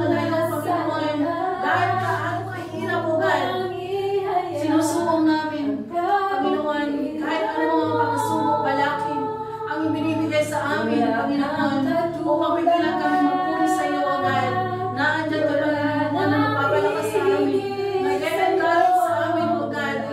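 Women singing a worship song together, with a strummed acoustic guitar underneath.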